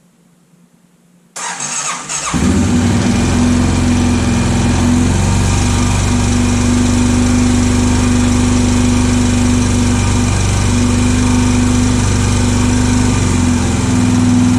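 Honda 650 motorcycle engine being started: a second or so of cranking about a second and a half in, then it catches and runs steadily. This is the first start of a bike brought in as not running, now on fresh fuel.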